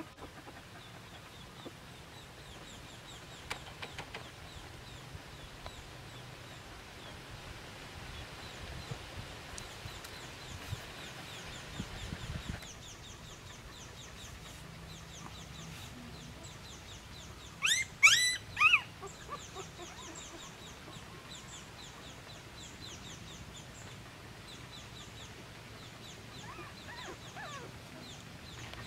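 A quick run of short, high-pitched animal calls that rise and fall, about eighteen seconds in, with a fainter few near the end. Faint high chirping runs underneath.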